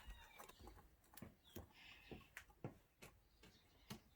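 Near silence with faint, irregular light clicks and taps.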